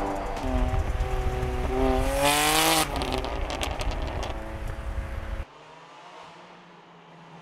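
BMW G82 M4 Competition's S58 twin-turbo inline-six through an Armytrix exhaust, revving hard with a note that climbs in short steps to a peak about three seconds in. It then runs on more steadily with a few sharp crackles. About five seconds in it cuts suddenly to a far quieter, steady low engine hum.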